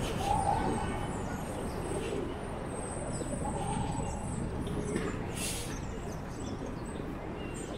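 Busy city street noise heard from a moving bicycle: a steady wash of traffic with snatches of passers-by's voices.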